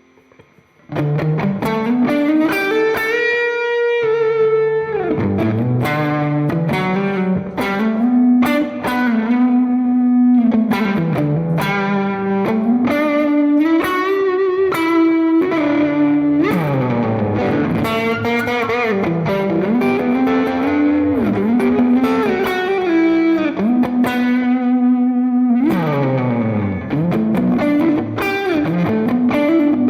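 Electric guitar played on a clean amp tone with an overdrive pedal engaged, picking a melodic line with sliding and bending notes. The playing starts about a second in.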